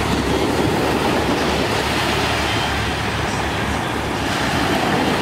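Small waves breaking and washing on a sandy shore, with wind rumbling on the microphone.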